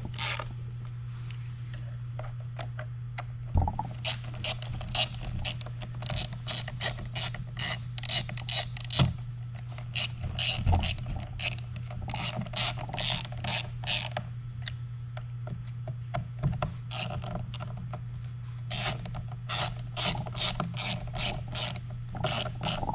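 Ratchet wrench clicking in runs of strokes, a few clicks a second, with short pauses between runs. A steady low hum runs underneath.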